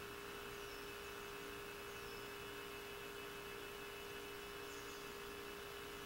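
Steady electrical hum with hiss, and a few faint, short, high chirps falling in pitch from a bird.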